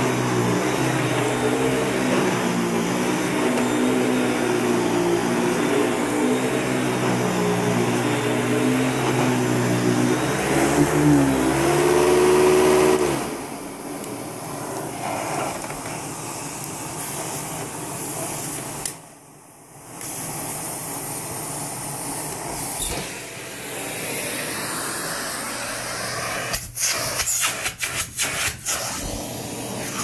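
Beam 287S central vacuum with an electric powerhead running on carpet: a loud steady motor hum over the rush of suction. About 13 seconds in the hum drops away, leaving a steady hiss of air drawn through the hose, which goes briefly quieter around 19 seconds. Near the end, a run of sharp clicks and knocks as the hose handle is handled.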